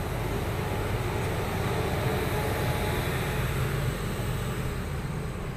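Indian Railways WAG-9 electric locomotive running past close by, with a steady rumble of wheels and running gear on the rails that swells slightly midway.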